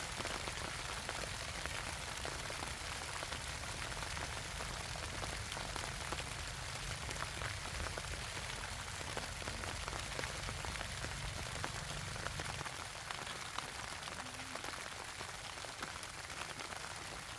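Heavy rain falling, a dense hiss full of small drop ticks. A low rumble underneath fades out about two-thirds of the way through.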